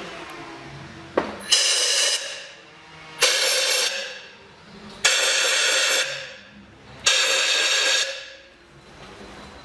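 Compressed-air blow gun blasting four bursts of about a second each into the spark plug wells of the engine, clearing out debris so nothing falls into the cylinders when the plugs come out.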